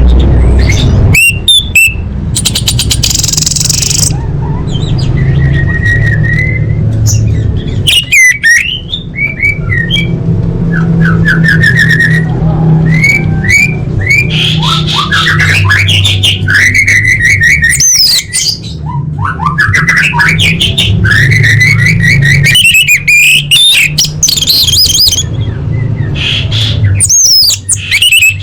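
Orange-headed thrush singing a long, varied song of loud whistled phrases, rapid trills, sweeping notes and a buzzy rattle, phrase after phrase with short gaps, over a steady low rumble.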